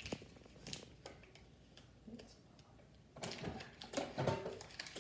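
Clicks, knocks and rustles of ration packets and cups being handled on a table, a few scattered taps and then a busier cluster of handling noises near the end.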